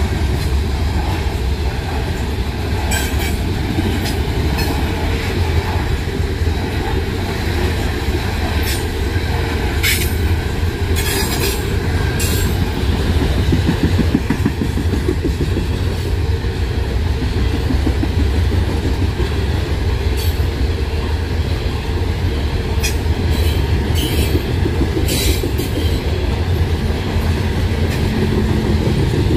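Norfolk Southern coal train's hopper cars rolling steadily past: a continuous heavy rumble of wheels on rail, broken by scattered sharp clicks and clanks.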